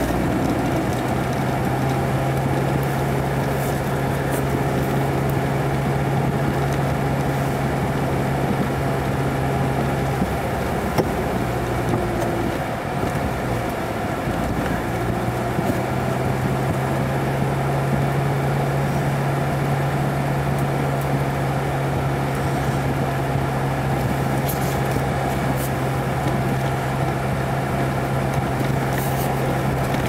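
Jeep's engine and tyre noise heard from inside the cab while driving on a snow-packed road: a steady hum over a wash of road noise. The engine note falls away for a few seconds about halfway through, then picks back up and holds steady.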